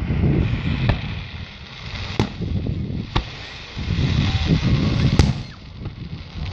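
Fireworks exploding: four sharp bangs spaced about one to two seconds apart.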